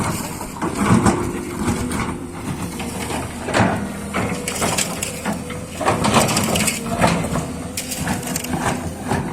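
Liugong 920D excavator at work: irregular crunching and knocking, like material being crushed, over a steady machine hum.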